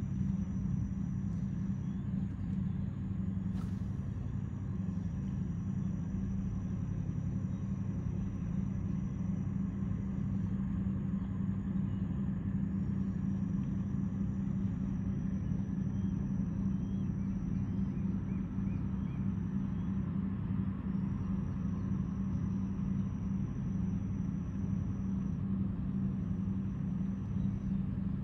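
Towboat diesel engines pushing a string of barges, a steady low drone that carries across the river without letup.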